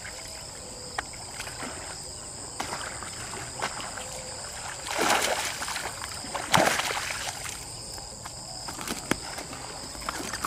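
Insects buzzing steadily in high, even tones, with scattered small clicks. There are two bursts of splashing in the water, about five and six and a half seconds in, the second the louder.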